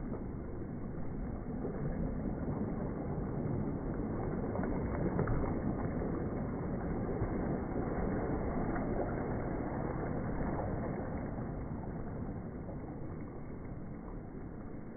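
Small waves washing over a shallow pebble beach: a steady rush of water that eases off over the last few seconds.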